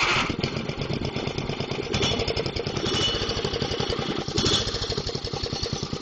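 Small gasoline engine of a home-built gas-powered 3T22 tornado siren idling steadily at a low throttle set by radio remote, with an even, rapid putter of firing pulses.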